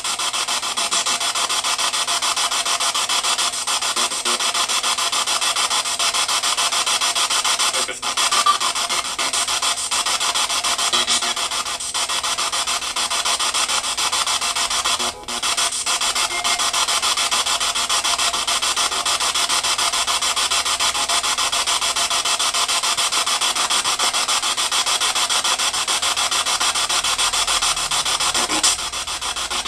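Spirit box (a radio rapidly sweeping through stations) giving out a steady hiss of static, with a few brief dropouts.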